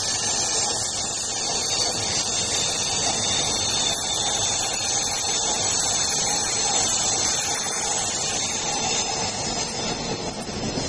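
JR East E233-series electric train passing at speed, a steady hiss and rush of wheels on rail that eases slightly near the end as the last cars go by.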